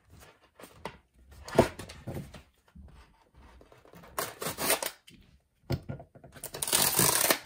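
A utility knife cutting open a cardboard mailer envelope, with the card being handled: a knock about a second and a half in, then scraping and tearing of cardboard, loudest in a long stretch near the end.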